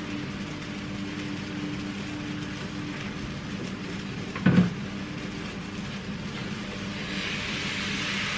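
Blini frying in a pan on a gas stove: a steady hum under a faint sizzle, a single knock about halfway through, and a louder sizzle near the end as the pan is tipped and batter goes in.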